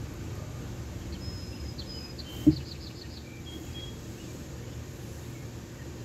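Outdoor ambience with a steady low rumble and a songbird calling: a few held whistled notes, then a quick run of about five short chirps. A single short thump about two and a half seconds in is the loudest sound.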